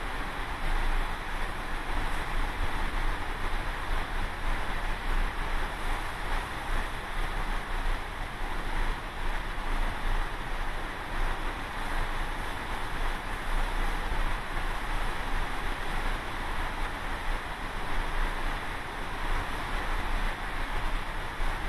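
Steady rush of open-ocean wind and waves heard from a ship at sea, with a low rumble of wind on the microphone underneath.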